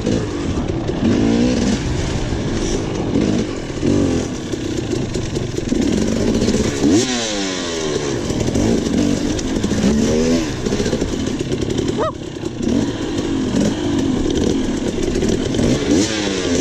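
Enduro dirt bike engine being ridden hard. The pitch climbs and drops every second or two as the throttle is opened and closed and the gears change.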